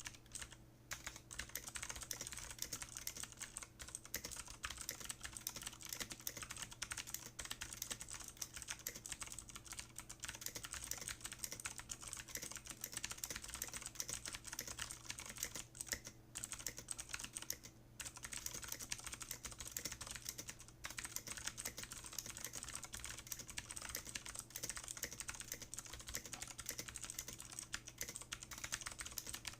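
Fast continuous typing on an MG Phantom Rider mechanical keyboard with clicky Kailh Blue switches and POM keycaps, at about 85 words a minute: a rapid, unbroken stream of sharp clicks with two brief pauses around the middle.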